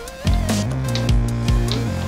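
Background music: electric guitar with gliding notes over a bass line and a steady drum beat of about two hits a second.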